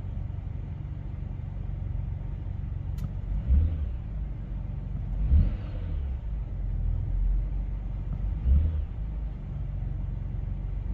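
BMW X5 E70 engine idling steadily with a few short rises in engine speed, running smooth with its two new VANOS camshaft solenoids fitted, the earlier rough idle cured. A single sharp click comes about three seconds in.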